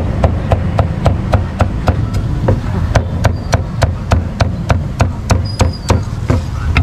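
Meat cleaver chopping crispy roast pork belly on a thick wooden chopping block, sharp even knocks about four a second, over a low steady street rumble.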